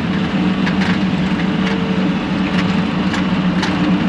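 Bobcat T630 tracked skid steer's diesel engine running steadily under load while back-dragging soil, with scattered light clicks and clanks from the tracks and bucket.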